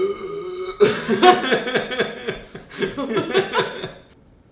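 Laughter: a short drawn-out voice sound, then about three seconds of quick, choppy bursts of laughing that die away near the end.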